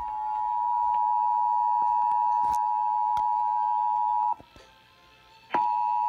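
Emergency Alert System attention tone played over an FM radio: a steady, loud single-pitched tone that cuts out about four seconds in for roughly a second, then starts again.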